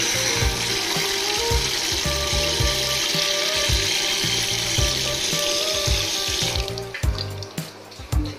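Tap water running through a newly fitted faucet-mounted water filter and splashing into a ceramic washbasin; the flow is shut off about six and a half seconds in, followed by a few light knocks.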